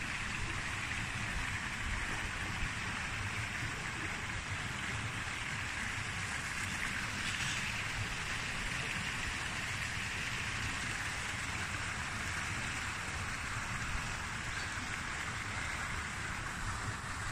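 Water pouring steadily over a rock ledge into a pool: a constant splashing hiss.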